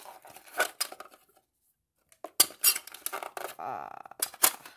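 A cardboard cube box with a plastic insert and small hard plastic parts being handled: quick clicks and clatter. The sound drops out entirely for under a second about a second in. A short squeaky rub follows about three and a half seconds in.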